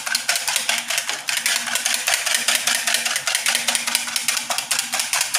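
Eggs being beaten by hand in a plastic mixing bowl to froth them: the utensil clacks fast and steadily against the bowl, many quick strokes a second.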